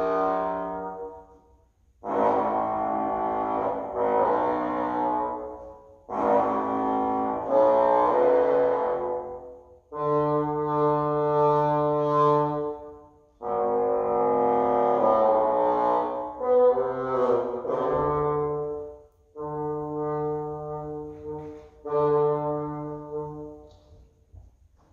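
A solo wind instrument plays slow, sustained low-to-middle notes in short separate phrases of one to three seconds each, with brief pauses between them. Some phrases hold one note and others move through a few notes.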